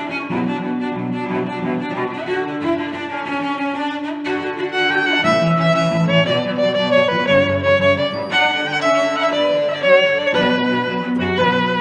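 Background music led by bowed strings, held notes moving from one pitch to the next.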